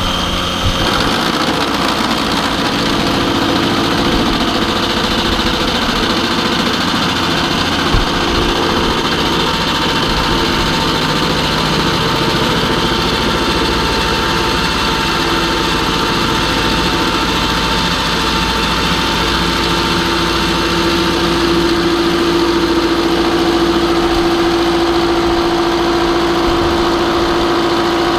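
Metal-cutting machine tool running steadily while taking a cut in steel, a continuous motor and gear hum with the cutting noise over it; a low steady tone in the hum grows stronger about two-thirds of the way through.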